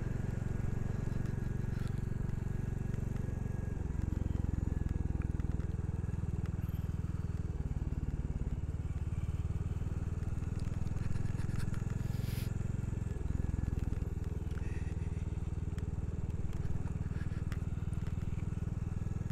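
Royal Enfield Classic 350's single-cylinder engine running steadily under way, its note shifting in pitch about four seconds in and again near the thirteen-second mark as the revs change.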